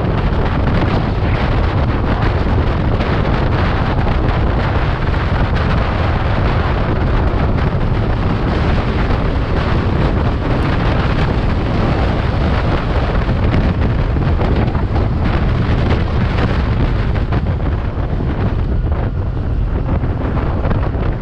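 Heavy wind buffeting on the microphone of a scooter ridden at about 70 to 80 km/h, a steady dense rush with road and engine noise underneath. It eases slightly near the end as the scooter slows.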